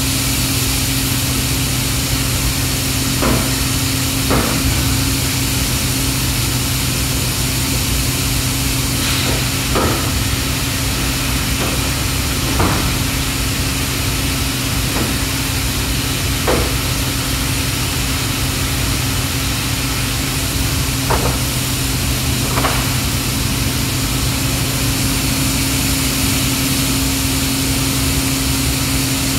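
Steady hum and hiss of running plastic injection molding machinery, with a few short sharp knocks scattered through.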